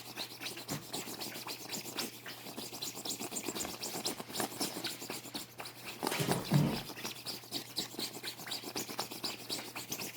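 Fingers scratching through a chicken's feathers in quick, repeated rubbing strokes. A louder, lower sound comes about six seconds in.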